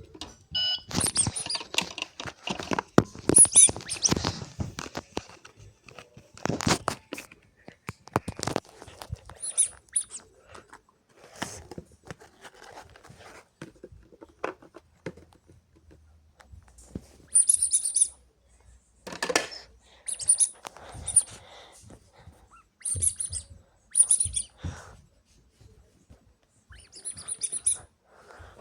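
Guinea pig squeaking in short, very high-pitched bursts, mostly in the second half, amid scrabbling and pattering clicks.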